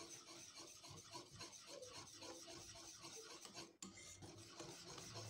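Faint, quick, repeated scraping of a metal wire whisk stirring liquid cream around a bowl, blending in red food colouring.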